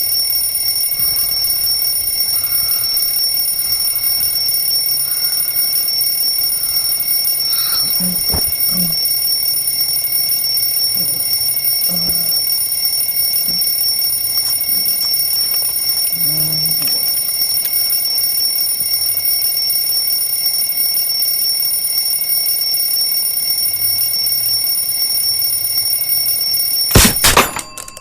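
Alarm clock ringing, a loud, steady, high-pitched ring with no breaks that cuts off near the end with a loud knock.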